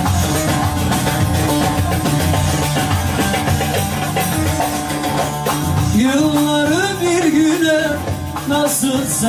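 Background music: a Turkish song, an instrumental passage with a band backing, then a singing voice comes in about six seconds in.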